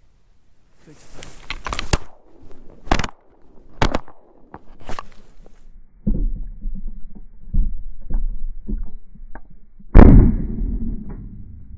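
Shotgun fire: several sharp cracks in the first half, then one loud shot about ten seconds in that rings out and fades slowly.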